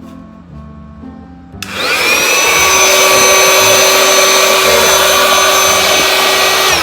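AC electric air pump switched on about a second and a half in: its motor whines up to speed within about half a second, then runs loud and steady with a strong rush of air. Near the end it is switched off and the pitch begins to fall.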